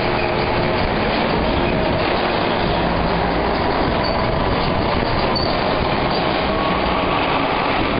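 Propane-powered Nissan forklifts driving, their engines running under a steady mechanical rumble and hiss, with a brief high squeal about five seconds in.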